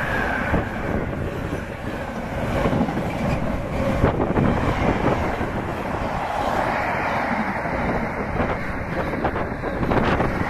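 Freight train wagons passing at speed on the near track, a continuous rumble and rush of steel wheels on the rails, with a few sharp knocks over rail joints, one about four seconds in and a couple more near the end.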